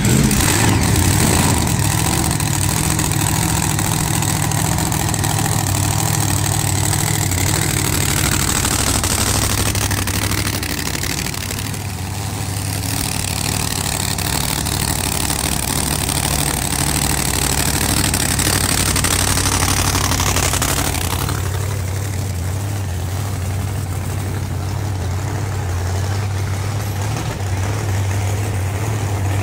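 Drag racing car engines idling with a steady deep rumble, no hard revving; a high hiss in the background drops away about two-thirds of the way through.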